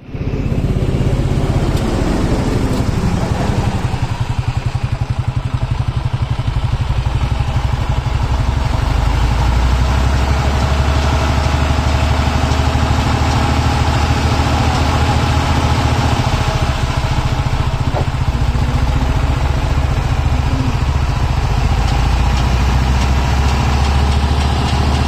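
Excavator's diesel engine running steadily with a continuous low throb.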